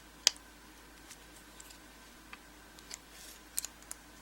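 Small metallic clicks and ticks from a lock cylinder and hand tools being handled as it is taken apart: one sharp click about a quarter of a second in, then a few faint scattered ticks, a little busier near the end.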